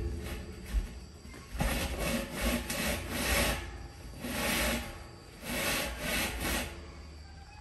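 A rough rubbing or scraping sound, repeated in about seven strokes of under a second each, starting about a second and a half in.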